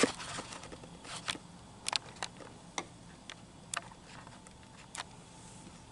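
Scattered light clicks and taps, about a dozen at irregular intervals, over quiet room noise.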